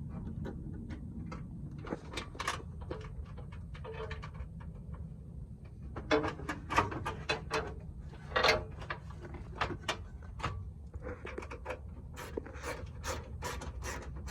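Irregular clicks and scrapes of a hand tool and metal parts as a bolt is threaded into the cold air intake's filter mounting plate, coming faster near the end, over a steady low hum.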